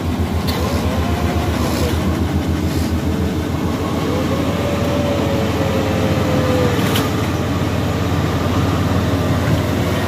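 Yanmar AW82V rice combine harvester's diesel engine running as the tracked machine drives along, a loud steady low rumble with a fast even pulse. A faint whine rises and falls in the middle.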